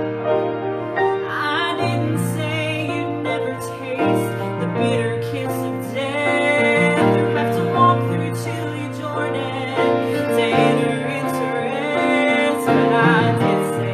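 A woman singing a slow song with vibrato over a piano accompaniment.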